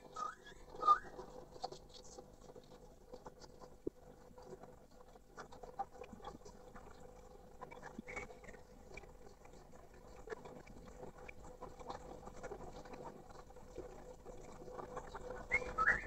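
Caged male poksay mandarin, a laughingthrush, giving short chirping calls, loudest about a second in and again near the end, with sparse quieter calls and light taps between over a faint steady hum.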